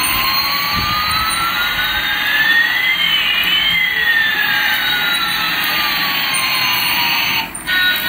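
Toy Airbus A380's electronic jet-engine sound effect: a steady hissing roar with one whine rising in pitch while another falls, crossing midway. It cuts off abruptly near the end.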